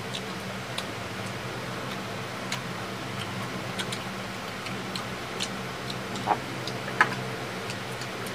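Close-up eating sounds: scattered small clicks and smacks of people chewing, with two slightly louder clicks near the end, over a steady low hum.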